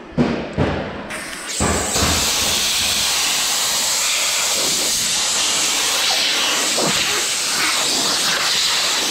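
Compressed-air blow gun hissing steadily, switching on about a second in, blowing sanding dust off the sanded body filler on a car fender.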